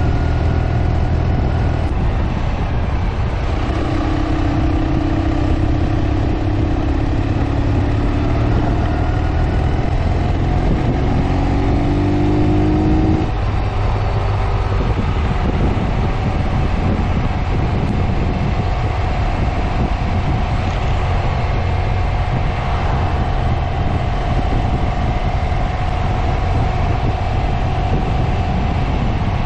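Ural sidecar motorcycle's air-cooled flat-twin engine running at road speed under heavy wind and road rumble, heard from the moving sidecar. The engine note climbs steadily for several seconds, then drops off abruptly about thirteen seconds in and settles into a steadier tone.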